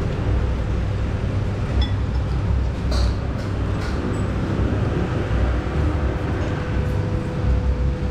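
Steady low background rumble, with a light clink of eating utensils about three seconds in.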